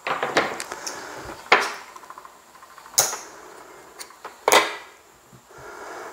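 Casino chips clicking and clacking as they are picked up and set down on a felt craps layout: a clatter of small clicks at the start, then three sharp clacks about a second and a half apart.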